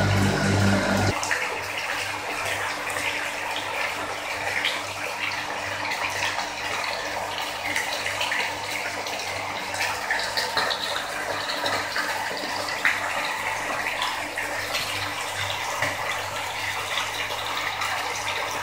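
Water pouring from a pipe into a round fish-holding tub: a steady splashing hiss with a faint low hum underneath. A pulsing low hum stops about a second in.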